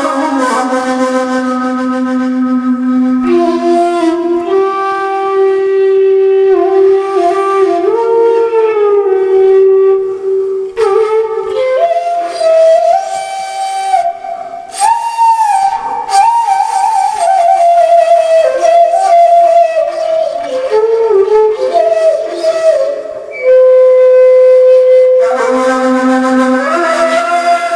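Music: a flute-like wind instrument plays a slow melody of held and gliding notes. It starts on a long low note, climbs higher midway, and settles back to a low held note near the end.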